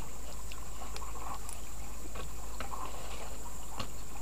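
A hooked fish splashing lightly at the water's surface, with scattered faint clicks, over a steady low background hum.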